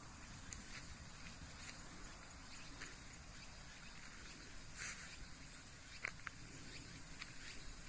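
Faint countryside ambience: scattered short chirps and clicks over a low steady rumble, with a brighter chirp about five seconds in and a sharp click a second later.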